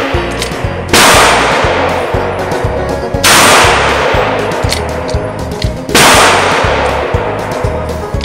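Handgun shots in an indoor range, four of them two to three seconds apart, each ringing off in the room's echo, over background music with a steady beat.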